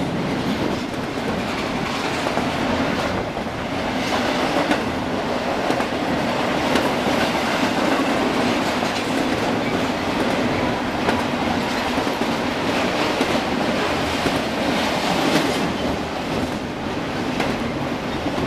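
BNSF double-stack intermodal freight train rolling past: a steady rumble of steel wheels on rail, with repeated clicks as the cars pass over the track.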